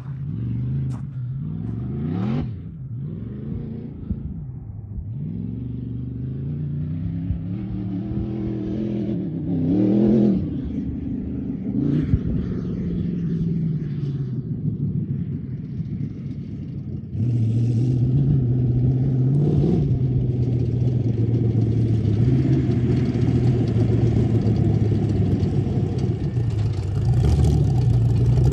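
Supercharged LS V8 engine of a VW Bug sand rail running hard off-road, its revs rising and falling again and again, with a loud rev about ten seconds in. It echoes off the surrounding hills. About seventeen seconds in it turns louder and holds a steadier note as the buggy comes near.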